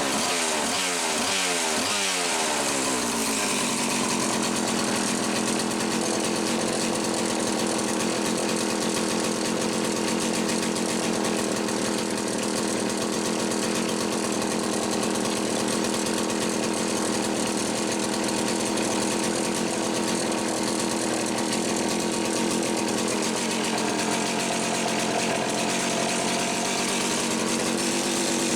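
Homelite 360 two-stroke chainsaw engine running on the bench, its speed dropping over the first few seconds and then holding steady. It runs consistently now that its carburetor intake bushing has been correctly installed.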